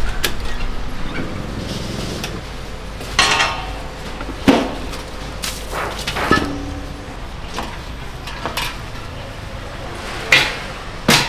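Kitchen utensils and dishes being handled, with about eight separate knocks and clinks scattered irregularly, a few of them ringing briefly.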